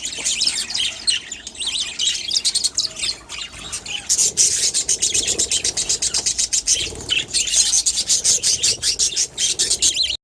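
Budgies chirping and chattering in quick, raspy, high calls that come thick and fast, denser from about four seconds in.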